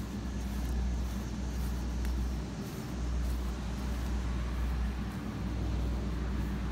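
Steady low rumble of outdoor background noise with a faint hiss above it, easing briefly twice.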